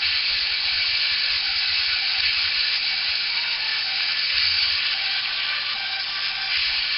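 A steady, fairly loud hiss with no rhythm or distinct strokes.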